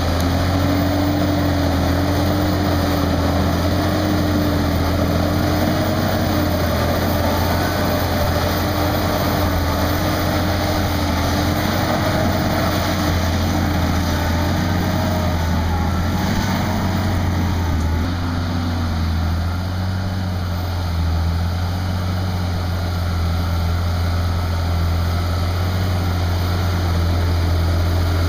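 Fendt 936 tractor's diesel engine running steadily under load, pulling a seven-furrow plough through the field. A steady low drone and a wavering engine tone, with pitch and level dipping a little about two-thirds of the way through.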